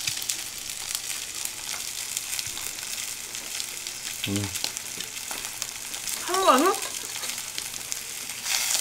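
Tomahawk steak sizzling on a grill pan over a portable tabletop stove: a steady crackle full of tiny pops. Short vocal sounds come about four seconds in and again about six and a half seconds in, the second rising and falling in pitch.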